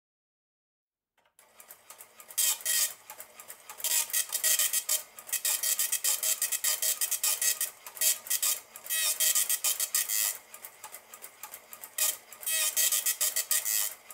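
Elka 803-02 cash register's dot matrix printer printing a report: the print head's rapid needle clicks run in loud rasping bursts, line after line, with quieter feed pauses between. It starts after about a second of silence.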